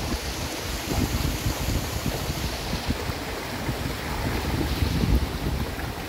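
Waterfall rushing as a steady hiss, with wind buffeting the microphone in uneven low rumbles.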